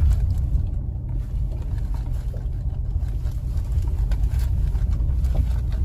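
Car cabin noise while driving slowly on a rough dirt track: a steady low rumble of engine and tyres, with a few faint knocks from the bumps.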